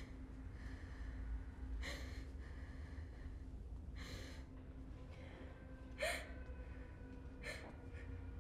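A person's short, sharp gasping breaths, about five of them, roughly two seconds apart, over a low steady hum.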